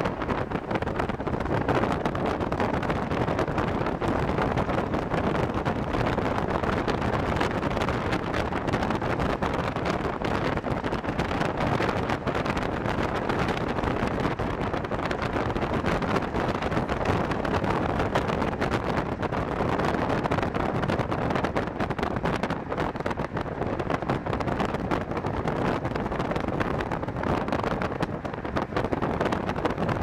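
Wind rushing over the microphone together with the road noise of a moving vehicle: a steady, unbroken rush.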